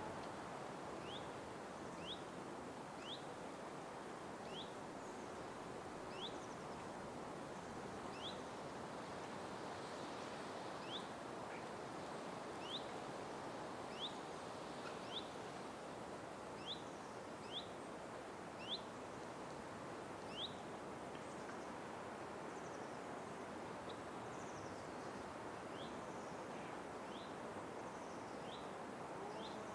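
Night forest ambience: a steady, soft rushing background with a short rising chirp from a small animal repeated about once a second. The chirps are clear for the first twenty seconds or so, then grow fainter.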